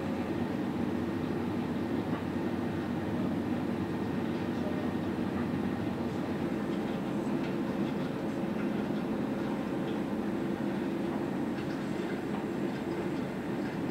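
Steady drone of a patrol ship's onboard machinery and ventilation, an even low hum and rumble; a deeper rumble joins about six seconds in.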